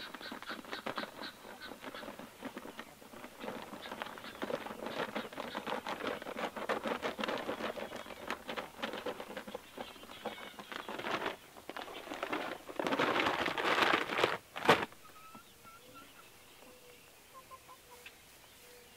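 Potting soil pouring from a bag into a wooden window box: a dense crackling patter of falling soil that swells near the end of the pour, followed by a single sharp knock about fifteen seconds in.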